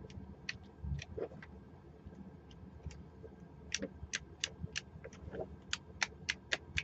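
Number dials of a Master Lock four-digit combination padlock clicking as they are turned. A few scattered clicks come first, then a quicker run of about three to four clicks a second over the last three seconds.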